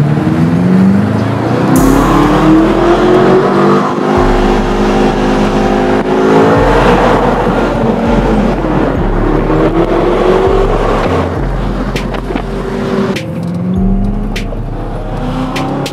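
BMW M6's twin-turbo V8 with modified exhaust heard from inside the cabin, climbing in pitch several times as the car accelerates through the gears, under background music with a heavy bass line.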